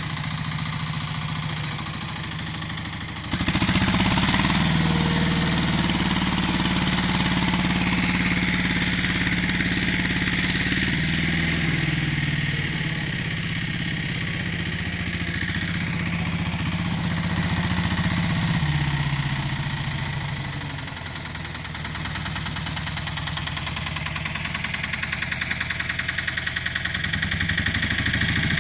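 Goldoni motoagricola's engine running steadily while working. Its revs and loudness pick up about three seconds in and ease off about two-thirds of the way through.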